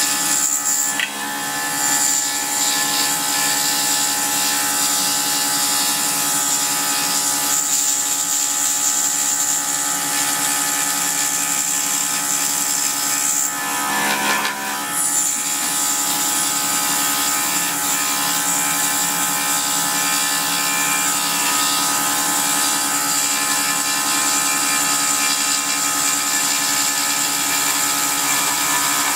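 Pégas 21-inch precision scroll saw running steadily, its reciprocating blade cutting two stacked pieces of 3/8-inch wood as they are fed slowly around a curved line. The sound dips briefly about halfway through.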